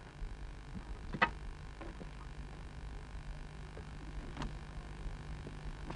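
Low steady electrical hum, a pause with nothing much else. Two faint clicks come about a second in and again a little past four seconds.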